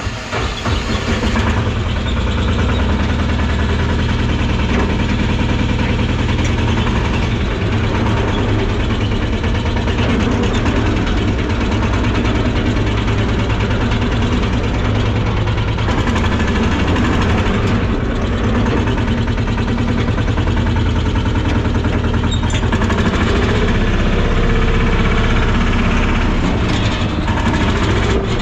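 Pat-pat farm vehicle's engine starting up and then running steadily.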